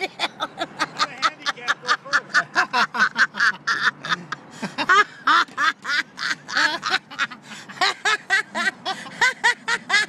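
A rapid, unbroken string of short pitched calls, about four or five a second, each bending up and down in pitch.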